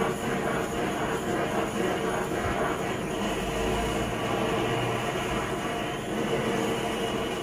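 Gas stove burner under a wok running with a steady rushing noise.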